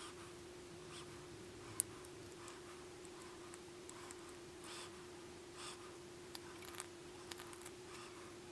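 Knife blades shaving a small wooden spoon by hand, a straight carving knife and then a hook knife hollowing the bowl: soft scraping cuts and small clicks now and then, with a cluster of quick strokes near the end. A steady low hum runs underneath.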